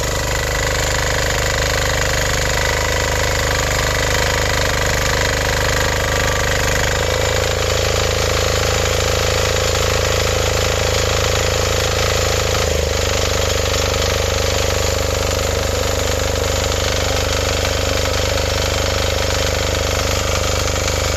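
KisanKraft 300D diesel mini tiller's single-cylinder engine running steadily, digging soil with its rotary tines at first. The engine note shifts about seven seconds in and again a little past halfway.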